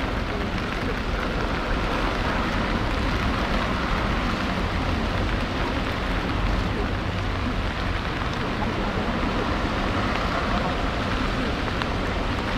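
Steady wind on the microphone with rain falling: a constant rushing noise with a deep rumble under it.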